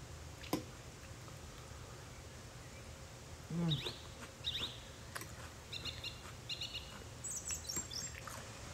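Small birds chirping in short, high, repeated bursts over a steady low hiss, with a single sharp click near the start, like a fork tapping a plate.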